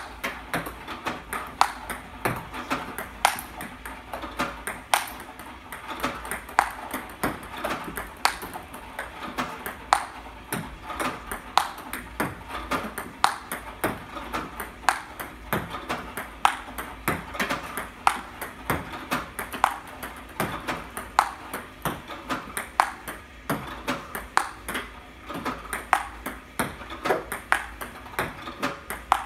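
Table tennis drill with an iPong Pro ball-feeding robot: a continuous run of sharp plastic ball clicks, several a second and unevenly spaced, as balls are fired, bounce on the table and are struck back with a Diadora paddle.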